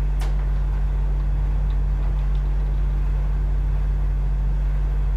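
Steady low background hum with a faint click just after the start.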